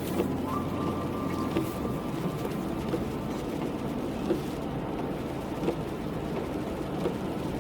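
Car driving on a wet road in rain: steady road and running noise, with scattered sharp ticks.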